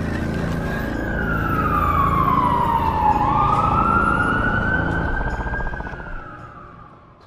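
A siren-like wail that slides down in pitch, then back up and down again, over a low rumbling music bed. It fades out near the end.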